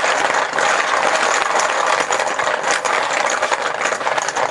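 A handful of small chips being shaken and mixed in a container to draw one at random: a dense, continuous clatter.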